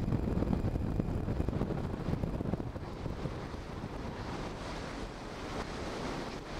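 Wind buffeting the microphone in gusts, heaviest in the first two or three seconds, over a steady rush of wind and low surf from shallow sea water.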